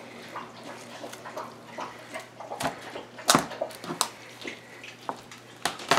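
Kitchen knife cutting the backbone out of a partially frozen raw chicken on a plastic cutting board: scattered clicks and soft knocks, the sharpest about three seconds in.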